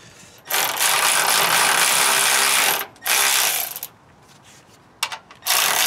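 Hand-held power tool running in bursts at a suspension ball joint: one long run of over two seconds, a shorter one, then two brief ones near the end.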